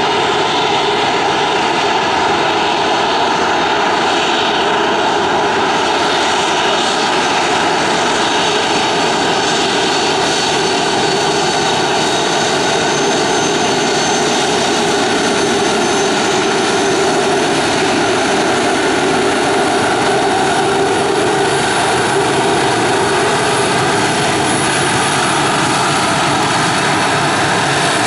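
Boeing 737-500's twin CFM56-3 turbofan engines running at taxi power: a steady jet whine over a broad rushing hiss, with a few faint high steady tones and no change in level.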